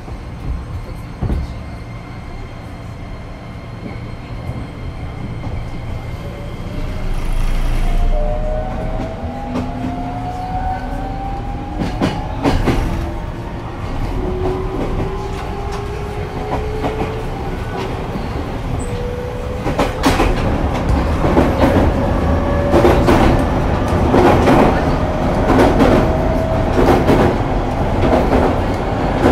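JR East 205 series 5000-subseries electric train heard aboard the motor car as it accelerates. The Toyo IGBT-VVVF inverter and traction motors whine in several tones that climb steadily in pitch from about a quarter of the way in. From about two-thirds in, rail-joint clickety-clack grows louder and more frequent over the running rumble.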